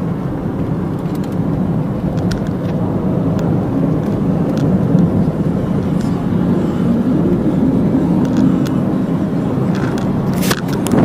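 Steady road and engine noise inside a moving car's cabin at highway speed, a low even rumble with a few faint ticks. A sudden louder hiss comes in near the end.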